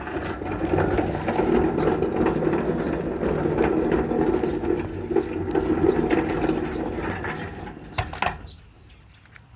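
Metal sliding gate rolling along its track, a continuous rattling rumble for about eight seconds that ends with two sharp knocks as it stops.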